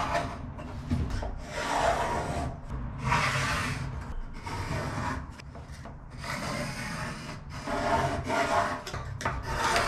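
Carpenter's pencil scratching lines onto a plywood panel along an aluminium spirit level, with the level scraped across the wood between marks: about half a dozen rasping strokes, each lasting about a second.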